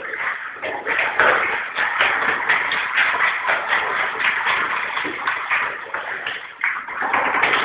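A dog's claws scrabbling and scraping on the hard surface of a shower tray in a rapid, busy run of quick scratches and taps as it paws about.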